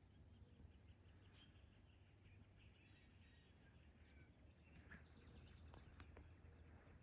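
Very faint outdoor ambience: a steady low rumble with distant small birds chirping thinly, and a few sharp clicks about six seconds in.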